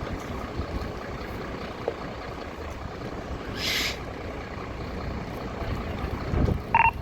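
Wind buffeting the microphone, with a short hiss about three and a half seconds in and a brief electronic beep near the end.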